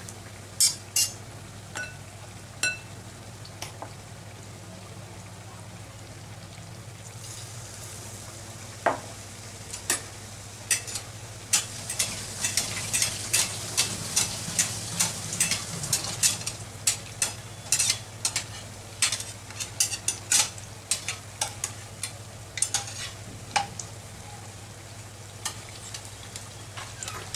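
Batter-coated eggplant slices deep-frying in oil on high heat, a steady sizzle, with a metal slotted spatula clicking and scraping against the kadai many times as the slices are turned in the oil.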